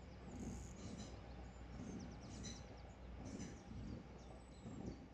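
Small birds singing, with quick repeated chirps and trills, over a low rumble of wind on the microphone that swells and fades.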